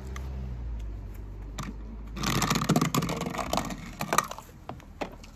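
Toy jeep rattling and scraping along a track of wooden craft sticks, a dense clatter of quick clicks lasting about two seconds, followed by a few separate sharp clicks near the end.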